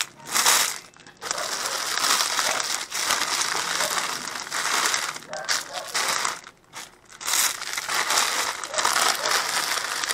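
Several cats crunching and chewing prawn crackers close to the microphone: dense, crackly crunching broken by a few short pauses.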